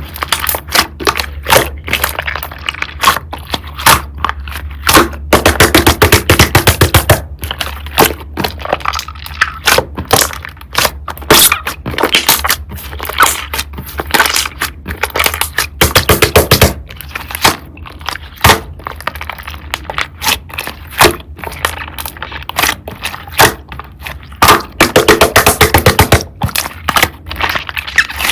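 Slime being squeezed, stretched and poked by hand, giving a dense run of crackling pops and clicks. Louder runs of rapid clicking come about five to seven seconds in, around sixteen seconds and around twenty-five seconds.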